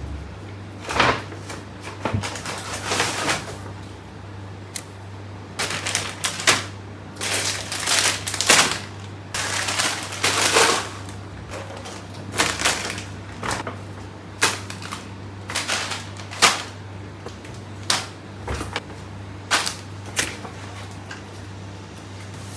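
Household objects being handled: an irregular run of knocks, clicks and rustles, busiest in the middle, with a cupboard-like opening and closing. A steady low hum runs underneath.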